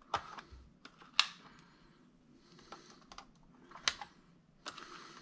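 Irregular small clicks and light taps of hard plastic and metal parts and tools being handled while reassembling a micro RC crawler, the two loudest about a second in and just before four seconds.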